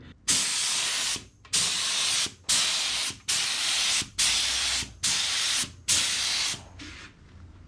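Compressed-air spray gun hissing in short bursts as the trigger is pulled and released, misting clear-coat rust protector onto a motorcycle engine. There are seven bursts, each under a second, and they stop near the end.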